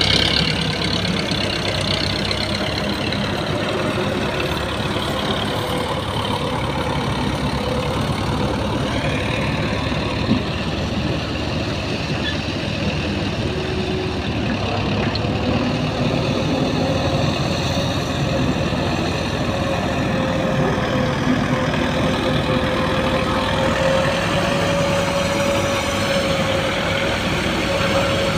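Heavy diesel engines running steadily, from a Hyundai wheeled excavator working the sand pile and a farm tractor standing beside it, with a held tone that shifts a little in pitch. A single sharp knock about ten seconds in.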